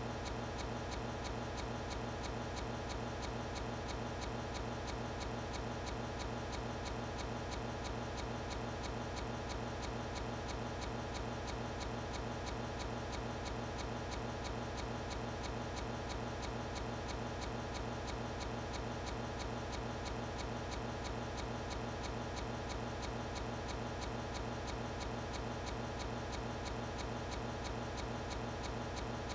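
Steady ticking, quick and evenly spaced, at an unchanging level throughout.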